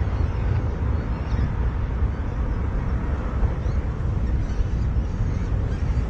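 Steady low rumbling background noise, with a few faint high chirps now and then.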